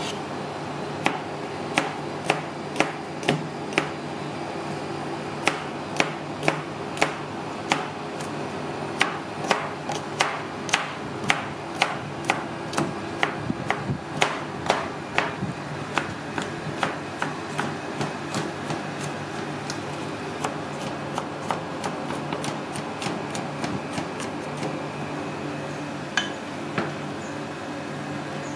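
A knife chopping on a cutting board: sharp strikes about two a second in runs, lighter and quicker in the later part, over a steady hum.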